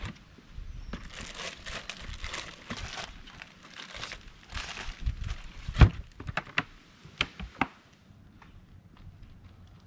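Plastic bags crinkling and rustling as food is packed into a hard-sided cooler. About six seconds in the cooler lid shuts with a thump, followed by several sharp clicks of its rubber latches.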